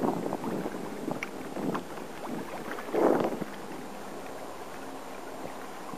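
Water splashing and gurgling against the hull of a sea kayak under way, with a louder splash about three seconds in and a steadier, softer wash after it.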